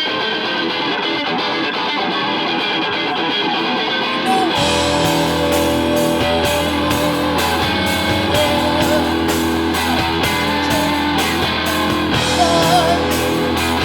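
Rock band playing with distorted electric guitar. The guitar plays alone at first, then bass and drums come in about four and a half seconds in.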